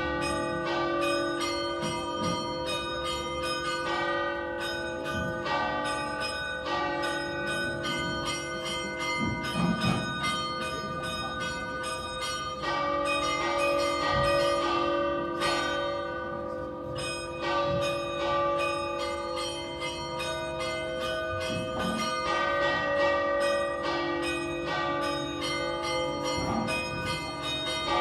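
Three tower bells rung in a festive peal: a large bell cast in 1878 and two smaller bells cast in 2015, on D-flat and not tuned to a scale. The strokes follow one another quickly, so the ringing tones overlap into a continuous clangour.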